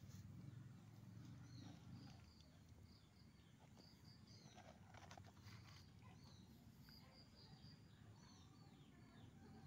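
Faint outdoor ambience: small birds chirping in short, high, repeated notes throughout, over a low rumble, with a few brief clicks near the middle.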